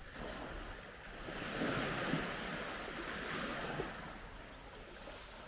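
Sea surf washing onto the shore: an even rush of noise that swells in the middle and then eases off.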